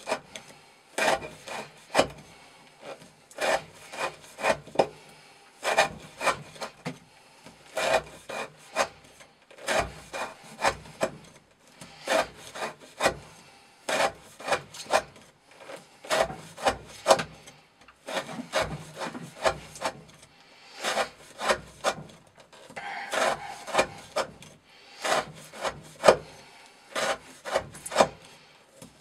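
Chris Reeve Sebenza 21 folding knife with its factory-sharpened V edge carving curled shavings off a wooden stick, a sharpness test of the edge. Short scraping strokes of the blade through the wood repeat about once a second.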